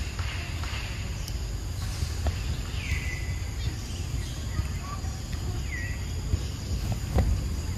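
Outdoor ambience: a steady insect drone over a low rumble, with two short falling chirps about three and six seconds in and a sharp click near the end.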